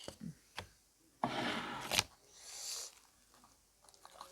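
Food being handled at the table while eating chole bhature: a few small clicks, a short rough rustle ending in a sharp click about two seconds in, then a brief soft hiss.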